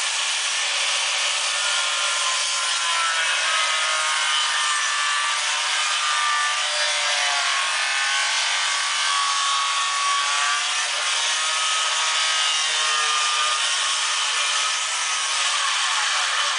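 Handheld power tool working wood: a steady, loud rough noise whose pitch wavers slightly as the tool bears on the wood.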